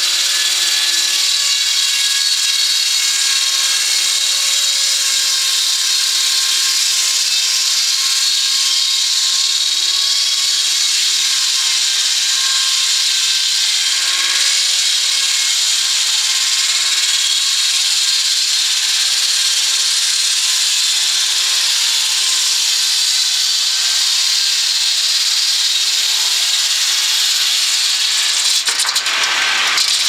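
Large circular head saw of a sawmill ripping lengthwise through a log on the carriage, a loud, steady, high-pitched sawing noise. There is a brief break near the end.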